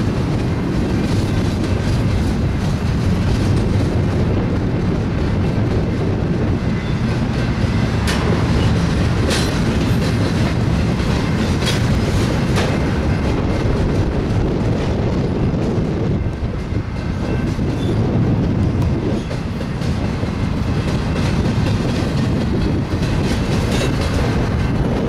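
BNSF double-stack container well cars rolling past: a steady rumble with wheels clacking over rail joints, and a few sharp metallic clicks through the middle.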